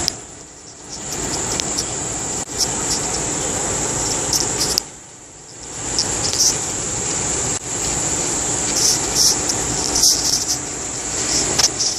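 Steady high-pitched insect chorus over a rushing noise, the whole sound dropping away briefly twice.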